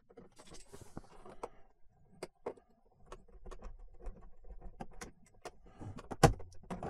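An action figure's plastic packaging being handled and worked loose: light crinkling with scattered small clicks and taps, and a few sharper clicks near the end.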